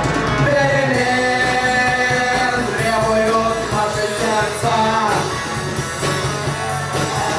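Rock music: a band plays on between the sung lines of the verse and the chorus, with a melodic line rising and falling over a steady bass.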